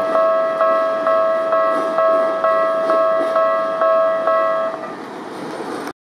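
Japanese railway level-crossing warning bell ringing its electronic ding about twice a second, then stopping about three-quarters of the way through, leaving a low rush of background noise.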